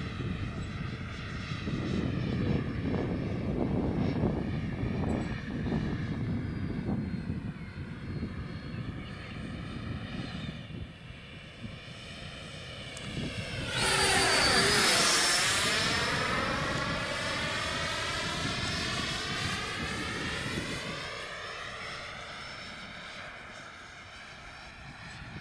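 Radio-controlled Yak-130 jet's 90mm electric ducted fan whining as the model flies around and comes in head on. It passes close and loudest about 14 seconds in, with a quick sweep in pitch, then fades away. Gusty wind rumbles on the microphone in the first half.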